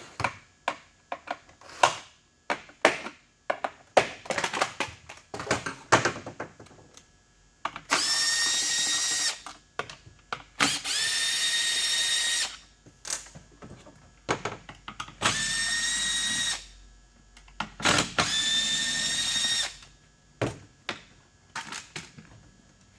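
Power drill run in four bursts of about a second and a half each, its whine rising briefly and then holding steady, with clicks and knocks of handling between the bursts. This is the work of disabling a Stihl MS 261 test chainsaw.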